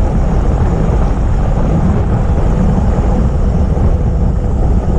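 Heavy wind buffeting on the microphone: a steady, loud rush with most of its weight low down.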